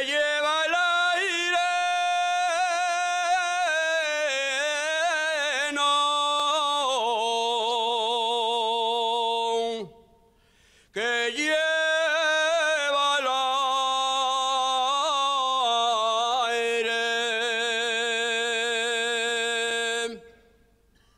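A man singing an unaccompanied Asturian tonada: two long, heavily ornamented phrases, each ending on a long held note, with a short breath about ten seconds in.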